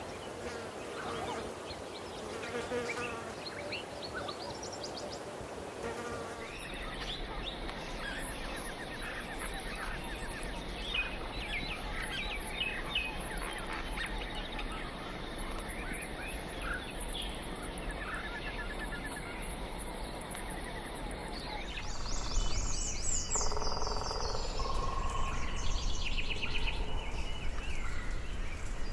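Birds calling with short chirps and trills over a dense background of buzzing and chirping. The recording changes abruptly about six seconds in and again about twenty-two seconds in, getting louder after the second change.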